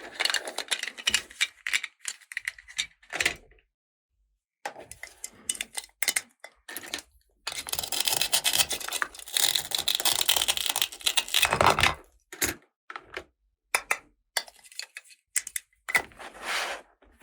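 Plastic toy packaging being handled and torn open, with scattered clicks and knocks of small plastic toy pieces. It comes in irregular bursts, with a long stretch of continuous rustling near the middle.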